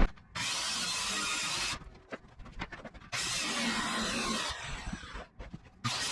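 A handheld power tool, drill-like, run in three even bursts of about a second and a half each, with small knocks and clicks in the pauses between.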